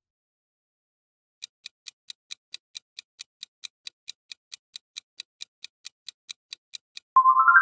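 Clock-like ticking sound effect for a countdown timer, about four to five even ticks a second, starting about a second and a half in. Near the end the ticking stops and a quick rising run of tones sounds and rings on.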